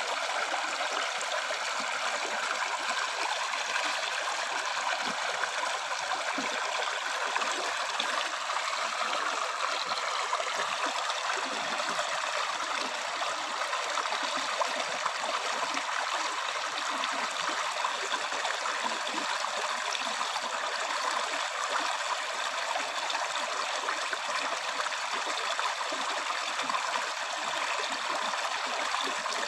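River water flowing steadily over stones, a continuous rushing and burbling without pauses.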